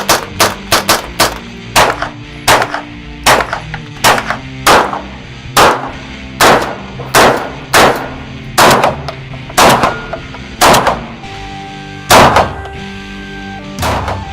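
Gunshots from firearms: a quick string of about six shots in the first second and a half, then steady fire at roughly one shot every three quarters of a second. The loudest and deepest shot comes about twelve seconds in. Background music plays underneath.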